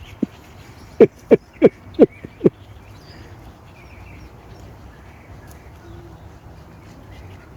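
American Bully dog giving five short, sharp barks in quick succession, about three a second, then falling quiet.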